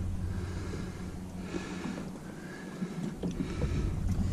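Steady low wind rumble on the microphone, with a few faint clicks about three seconds in.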